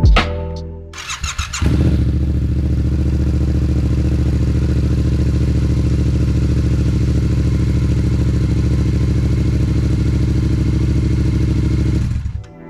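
Yamaha MT-07 parallel-twin engine with a MIVV GP Pro exhaust, starting about a second and a half in and then idling steadily at an even pitch. It cuts off suddenly near the end.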